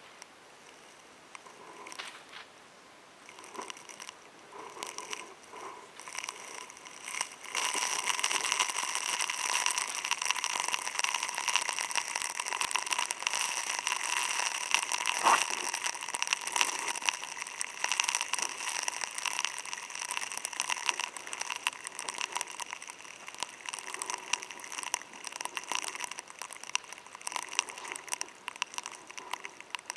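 Heavy rain pattering as dense close drop impacts on a hard surface. It picks up sharply about seven seconds in and eases somewhat in the second half.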